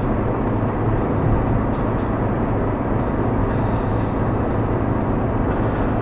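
Steady engine and tyre noise inside a Fiat Uno Economy cruising at highway speed, an even rumble with a low hum and no changes.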